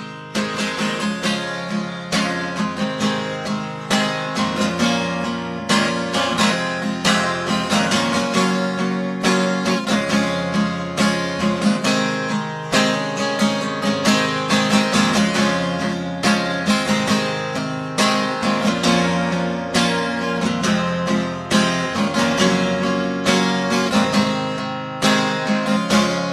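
Acoustic guitar strummed in a steady rhythm: an instrumental passage of a folk ballad, with no singing.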